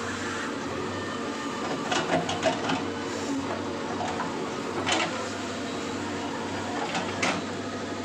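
JCB backhoe loader's diesel engine running steadily while digging, with sharp clanks of the bucket and stones: a cluster about two seconds in, another about five seconds in and one more near the end.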